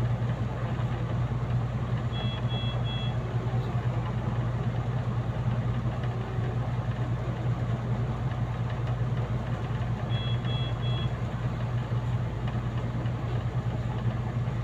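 Steady hum of a window-type air conditioner running. A short electronic triple beep from hospital equipment sounds twice, about eight seconds apart.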